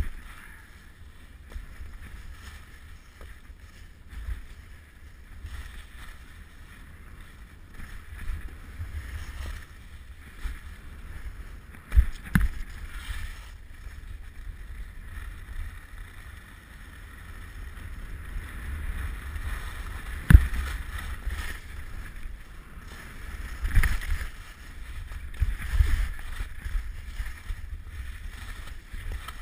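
Skis hissing and scraping over packed snow at speed, with wind rumbling on a helmet-mounted action camera. A few sharp thumps stand out, the loudest about 20 seconds in.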